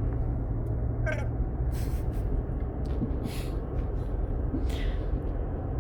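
A cat meows once, briefly, about a second in, over the steady low rumble of a car's road noise.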